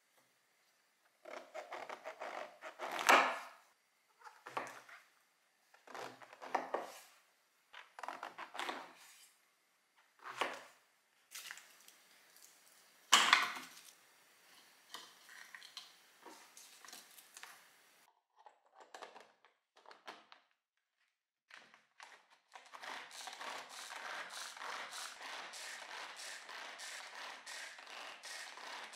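A kitchen knife cutting a king oyster mushroom and onion on a wooden cutting board, in a string of separate knocks of the blade on the board. From about 23 s to the end, a hand-operated food chopper runs with a steady, fast rattle as it minces the vegetables.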